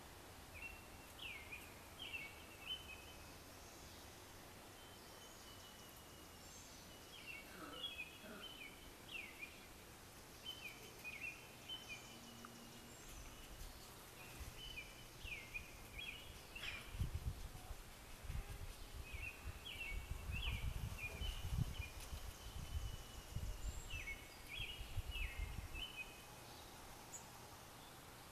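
A songbird singing faint, short phrases of high chirps, repeated every few seconds, over steady outdoor background noise. A low, irregular rumble comes and goes in the second half.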